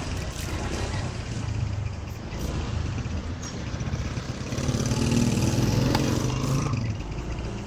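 Honda Click 125i scooter's single-cylinder four-stroke engine running as it rides along, with a steady low drone that gets louder for a couple of seconds past the middle.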